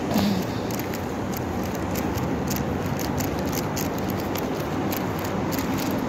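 Steady hum of road traffic on a busy multi-lane city road, cars passing continuously, with faint irregular ticks over it.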